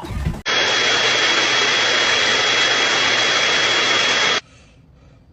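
A loud, steady rushing hiss with a faint high whistle in it. It starts abruptly about half a second in and cuts off suddenly about four seconds later, just after a short knock at the very start.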